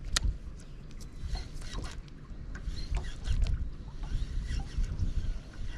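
Wind buffeting the microphone with small waves lapping at the boat's hull, overlaid by scattered light clicks from a spinning reel being cranked to retrieve a lure; one sharper click right at the start.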